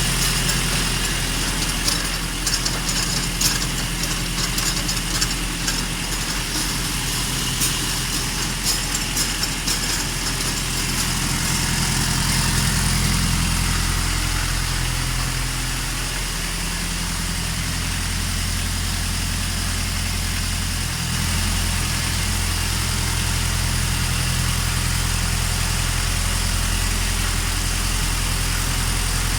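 Kubota farm tractor's diesel engine running steadily at idle, its low engine note shifting slightly a little past the middle. A scatter of light clicks sounds over it in the first several seconds.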